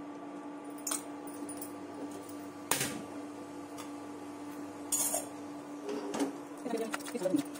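Small pan of dried red chillies being roasted and shaken on a gas burner: metal clinks and knocks of the pan against the burner grate, with the chillies rattling in it, a few sharp knocks and then a busier run of clinks near the end. A steady low hum runs underneath.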